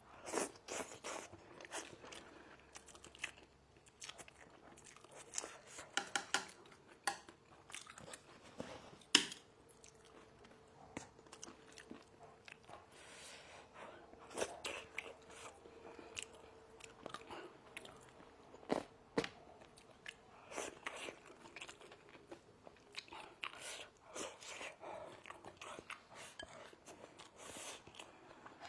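A person eating red-braised fish close to the microphone: irregular chewing and biting with soft clicks and smacks of the mouth throughout.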